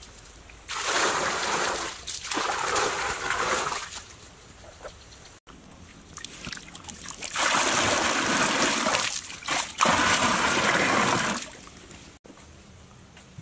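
Water splashing and gushing from clay pots, in four spells of one to two seconds each.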